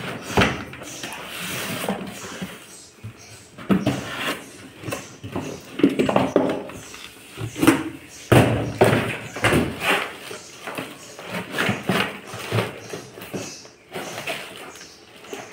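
Cardboard box inserts and plastic wrapping being handled as a wall fan's parts are lifted out of the box: irregular rustling, crinkling and scraping with short knocks.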